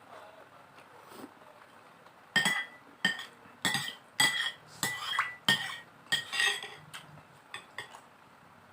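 A metal spoon clinking and scraping against a plate while eating, about seven sharp clinks in a row starting a couple of seconds in, some with a short ring.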